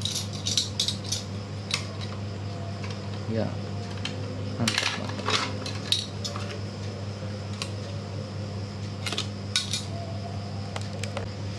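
Hard plastic clicks and taps as the white plastic bed canopy of a 1:16 RC pickup body is handled, pressed on and lifted off: scattered sharp clicks, a cluster at the start and another about five seconds in. A steady low hum runs underneath.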